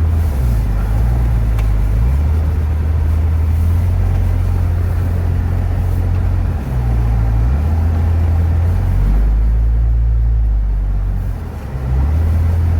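Off-road 4x4 driving through snow: a heavy, loud engine rumble that rises and falls several times, dipping briefly near the end.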